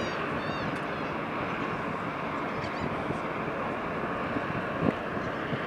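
Steady wind noise on the microphone over open harbour water, with a few short, high bird calls in the first second and fainter ones about halfway through. A brief thump of wind comes near the end.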